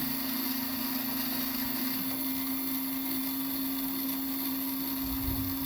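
Small DC gear motors driving a robot's wheels, running at a steady speed with an even whir and a constant hum and high whine.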